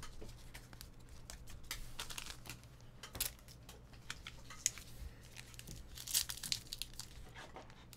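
Trading card pack wrapper crinkling and tearing as a pack is opened, with scattered light rustles and clicks of card handling, busiest about three seconds in and again about six seconds in.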